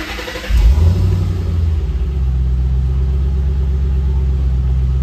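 2009 Mustang GT's 4.6-litre three-valve V8 cranking on the starter and catching about half a second in with a loud flare, then settling to a steady idle through Pypes Violator axle-back mufflers, heard from inside the cabin.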